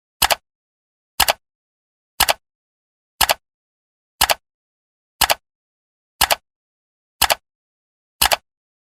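Countdown timer ticking like a clock: one sharp tick each second, each tick a quick double click, with silence between.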